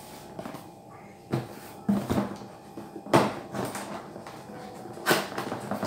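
Cardboard appliance boxes being handled and moved on a glass tabletop: a few separate knocks and scuffs, the two loudest in the second half.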